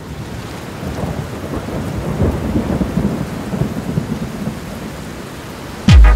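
Thunderstorm ambience of steady rain hiss and low rolling rumble, fading in from silence. Near the end, an electronic track cuts in with a loud, deep falling bass hit.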